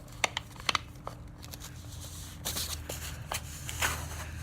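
Plastic toy water gun being pulled apart by hand: scattered sharp clicks and short rustling scrapes of the plastic parts working loose.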